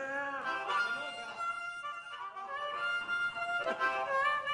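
Instrumental background music: a lead melody of held notes that bend in pitch.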